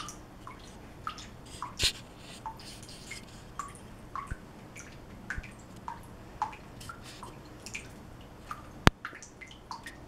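Water dripping from a bathroom sink faucet into the basin: short, falling plinks about two or three times a second at irregular spacing. A sharp click sounds just before the end.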